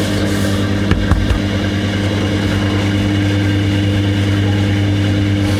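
Electric udon dough-rolling machine running steadily with a low hum as the dough sheet passes through its rollers on the final rolling pass, with a couple of brief knocks about a second in.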